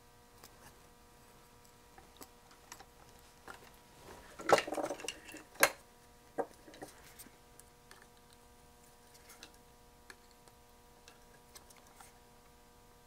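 Sharp clacks and clicks of a circuit board being set into a metal board-holder vise, loudest in a short cluster about four and a half to six seconds in, with scattered light clicks of handling around it.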